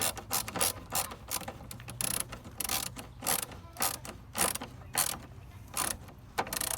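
Toolworks ratchet screwdriver ratcheting, its pawl rasping in short irregular bursts about two a second as the handle is swung back and forth while driving a screw.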